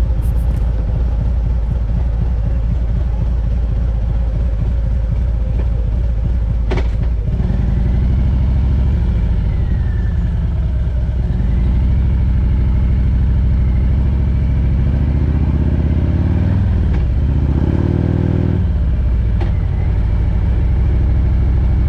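Harley-Davidson Road Glide's V-twin engine running at idle, with a sharp click about seven seconds in, after which the engine note gets fuller as the bike pulls away. Between about fifteen and nineteen seconds the revs rise and drop several times as it accelerates through the gears.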